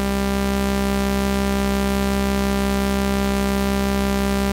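Oscilloscope-music audio signal that drives an oscilloscope's X-Y display: a steady buzzing tone rich in overtones, holding one still shape on the screen.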